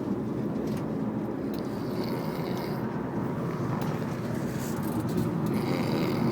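Steady road and engine noise inside a taxi cab, with a man snoring: slow breaths rise and fall about every three to four seconds.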